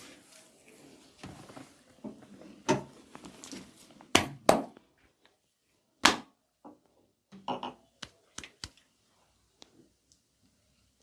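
A string of sharp percussive hits from hands striking the body during a massage, about ten at uneven spacing, with the loudest two about four and six seconds in.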